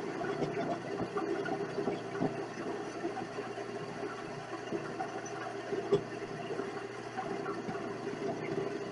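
Vevor 7x14 mini lathe running steadily with a mechanical hum, with one sharper knock about six seconds in.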